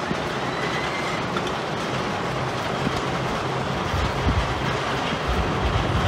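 Roller coaster lift-hill chains clattering as coaster trains climb the lift. Wind buffeting the microphone adds low rumbling gusts from about four seconds in.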